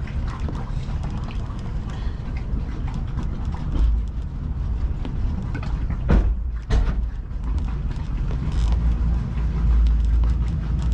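An engine running low and steady, with an uneven deep rumble that swells a few times.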